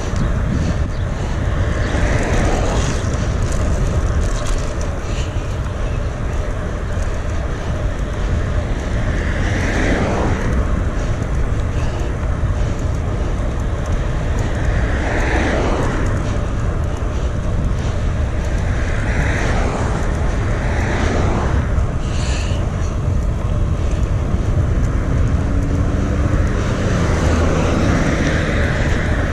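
Cars passing on the road about six times, each a swell of tyre and engine noise that builds and fades, over a steady low wind rumble on the microphone of a moving bicycle.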